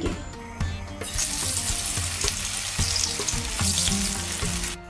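Masala- and cornflour-coated fish slices sizzling in hot shallow oil in a frying pan as they are laid in. The sizzle starts about a second in and stops abruptly near the end, with soft background music underneath.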